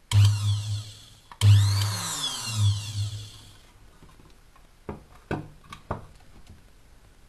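Electric motor of a mini jewellery drilling machine running in two short bursts, with a low hum and a high whine that rises and falls in pitch, stopping about halfway through. A few sharp clicks follow near the end.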